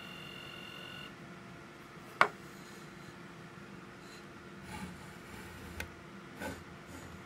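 A steady electronic beep cuts off about a second in, then a single sharp click, followed by soft pencil scratches and light knocks as a lug line is marked on the wooden snare shell against a guide block.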